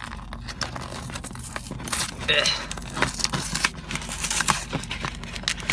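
Foil trading-card booster pack crinkling and crackling in the hands as it is worked and torn open, over a steady low hum.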